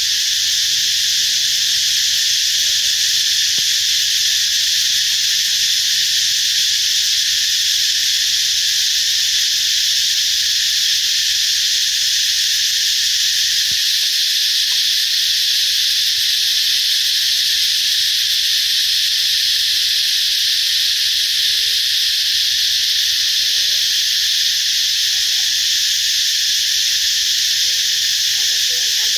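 Loud, steady chorus of insects: a continuous high drone with no breaks.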